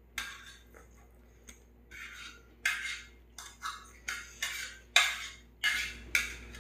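Thin metal chopsticks clinking and scraping against a metal plate while picking up food, about nine sharp clinks at an uneven pace, the loudest about five seconds in.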